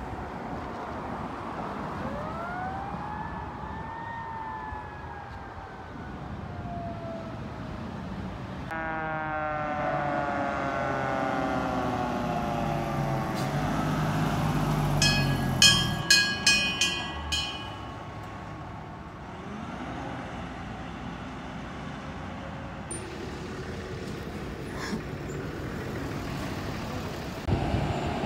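Fire engine siren wailing up and down, then winding down in pitch as the truck comes past with its engine running. A run of about five short horn blasts sounds about halfway through.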